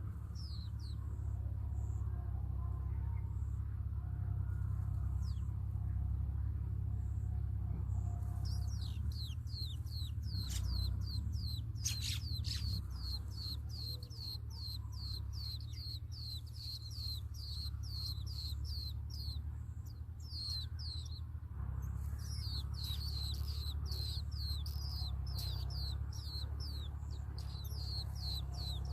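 Nestling birds begging for food: fast, high, falling chirps, several a second, begin about a third of the way in and break off briefly near the end, after a few scattered chirps at first. A steady low hum lies underneath.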